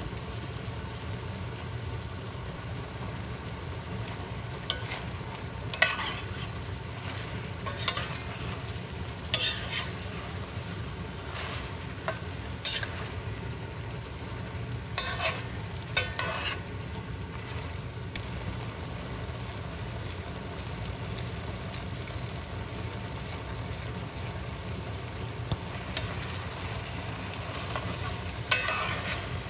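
Food frying in a pot over a steady low hum, with a utensil scraping and knocking against the pot a dozen or so times as it is stirred, mostly in the first half and again near the end.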